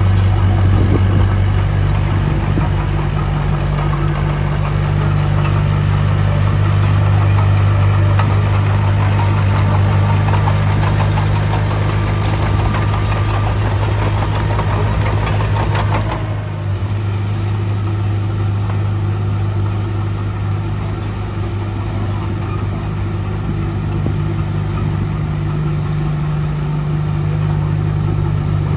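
Heavy earthmoving machine's diesel engine running steadily, with clicking and rattling over it that stops abruptly about halfway through, leaving the engine alone.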